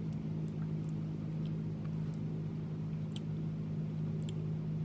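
A steady low electrical hum of room equipment, with a few faint light clicks of a knife handled over the food.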